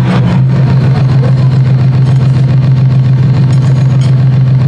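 Fast, continuous drum roll on large red barrel drums, heard as a loud, steady low rumble with a rapid flutter.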